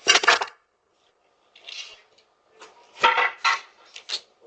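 A series of sudden clattering crashes of thrown objects striking hard things. The loudest comes right at the start, another follows about three seconds in, with smaller knocks between. It is heard through a doorbell camera's microphone.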